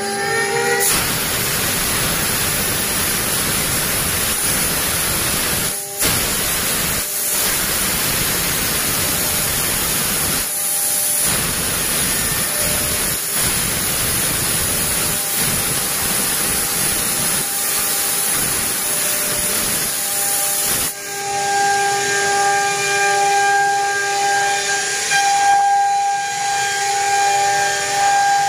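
CNC router spindle cutting a wooden board, a steady loud cutting hiss from the bit with a few brief dips. About twenty seconds in the cutting noise falls away, leaving the spindle's steady high whine.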